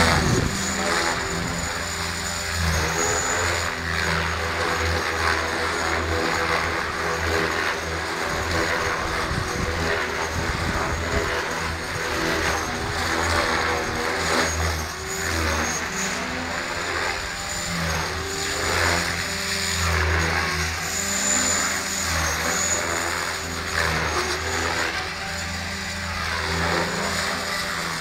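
T-Rex 500 electric radio-controlled helicopter in flight: a high motor whine that wavers in pitch over the rotor blades' low beat, which swells and fades as the helicopter moves.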